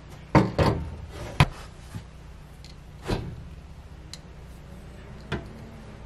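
A closet door knocking and bumping against its frame as it is held and fitted into place: a quick cluster of knocks in the first second and a half, then a few scattered, softer knocks.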